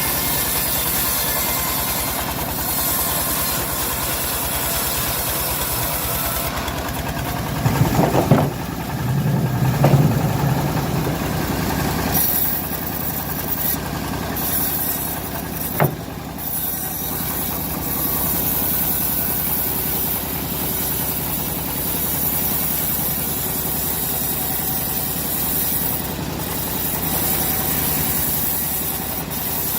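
Engine-driven homemade bandsaw mill running steadily at speed while sawing teak. The sound swells and deepens for a few seconds about eight seconds in, and there is one sharp knock about sixteen seconds in.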